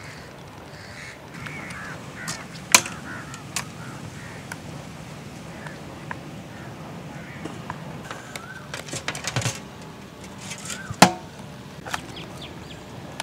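Thin wire and banana leaves being handled while the leaves are wired around a whole marinated goat: rustling, scraping and scattered clicks, with two sharp loud clicks, one about three seconds in and one near the end, and a burst of rustling just before the second. Birds call faintly in the background.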